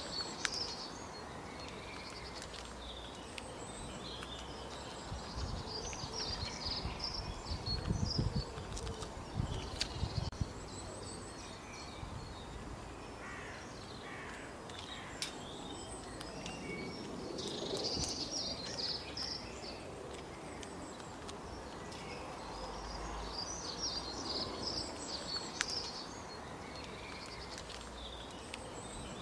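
Outdoor ambience of small birds chirping and twittering in clusters every few seconds, with a few faint clicks and a low rumble now and then.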